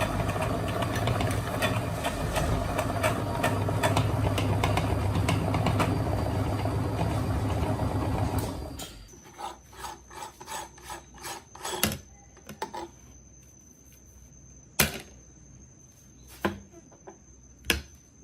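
Electric meat grinder running with a steady motor hum and dense crackling as hard candy is crushed. The motor stops about nine seconds in, leaving scattered clicks and knocks and a faint steady high tone.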